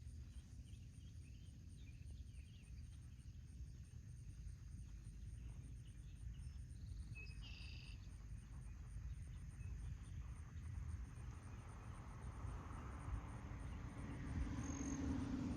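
Insects chirping in a fast, even, high-pitched pulse over a steady low rumble; a low hum swells near the end.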